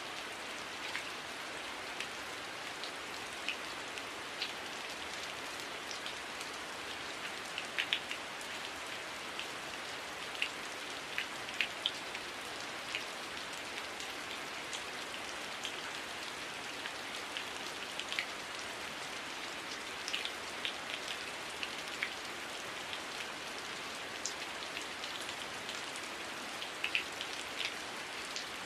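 Heavy rain falling steadily: a dense, even hiss with frequent sharp taps of individual drops scattered through it.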